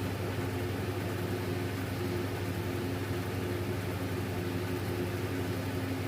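A steady, unchanging low mechanical hum, like a motor running.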